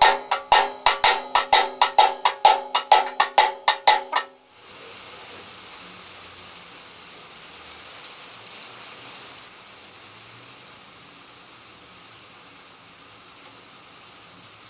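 Rapid hammer blows on a steel drift tube, about four or five a second, driving the headset bearing race down onto a vintage Vespa's fork steering column; each blow rings metallically. The hammering stops abruptly about four seconds in, leaving only a faint steady background hiss.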